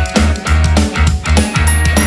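Background rock music with a steady drum beat and a bass line.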